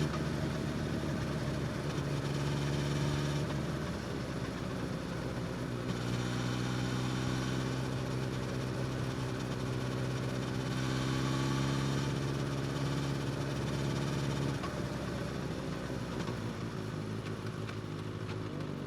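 Suzuki GSX-S1000's inline-four engine, breathing through an Austin Racing slip-on exhaust, running at steady moderate revs. The note wavers briefly about four seconds in, holds steady again, and drops to a lower, quieter note about fifteen seconds in as the throttle eases off.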